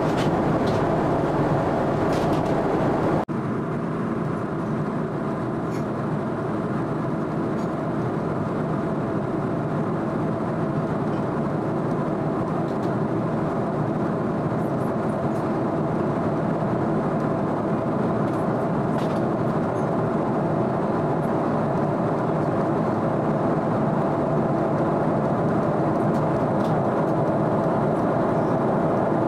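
Steady cabin drone of a Boeing 777-300ER in flight: engine hum and airflow noise heard inside the cabin. About three seconds in, the level and the deep rumble drop abruptly at a cut in the recording, and then the drone carries on.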